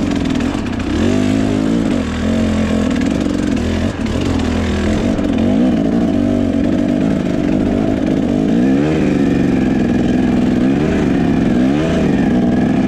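Dirt bike engine under a rider on the move, its revs rising and falling again and again as the throttle is worked.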